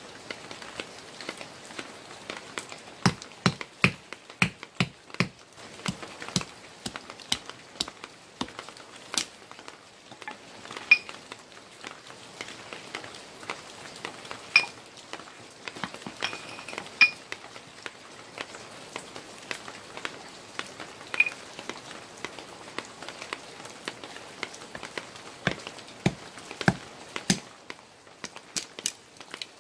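A stone tool striking wood: a quick run of sharp knocks, about two a second, then scattered clicks and light clinks as split wood is handled. A few more sharp knocks come near the end as a wooden stake is hammered with a flat stone.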